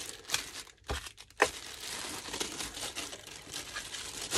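Clear plastic bag crinkling and rustling as a boxed solar charge controller is handled and unwrapped, with two sharp knocks about a second in.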